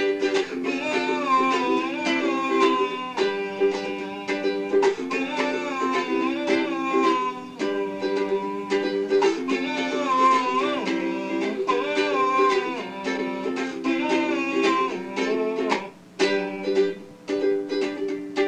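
Instrumental break in an indie-folk song: a strummed acoustic string instrument with a wavering melody line above it.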